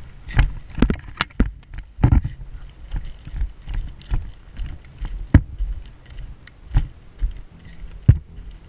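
Running footsteps on dirt and loose gravel, heard from a body-mounted camera that jolts with each stride. Uneven footfalls come about twice a second, mixed with knocks and rattles of gear and the replica rifle.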